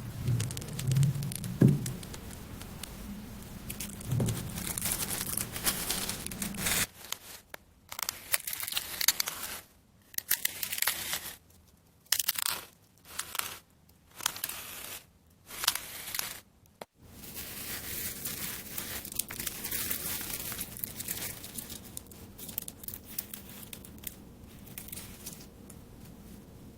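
Kinetic sand being sliced, giving a crisp crackling and popping. It starts as a continuous crackle, breaks into a run of separate cuts with short silent pauses in the middle, then becomes a steady crackle that fades toward the end.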